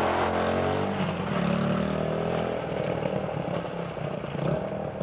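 Small motorcycle engine running, its pitch falling and rising with the throttle.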